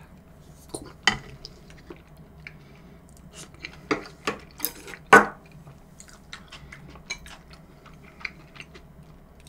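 Cutlery clinking and tapping against dishes in a run of scattered short knocks while someone eats curry and rice, the sharpest clink about five seconds in.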